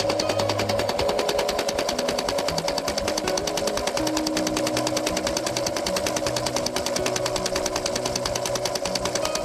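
Toy RC excavator's rock-breaker attachment hammering against a rock, a fast, even mechanical rattle.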